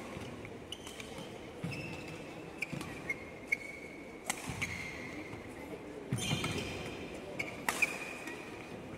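Badminton singles rally: sharp cracks of racket strings hitting the shuttlecock, several of them about a second or so apart, with short high squeaks of court shoes on the floor between shots.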